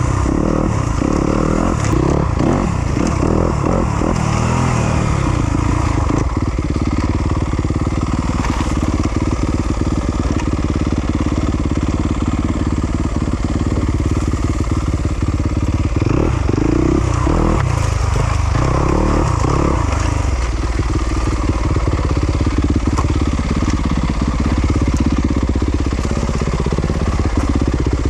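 Yamaha YZ250FX single-cylinder four-stroke dirt bike engine under varying throttle. The pitch rises and falls quickly in the first few seconds and again around the middle, with steadier running in between.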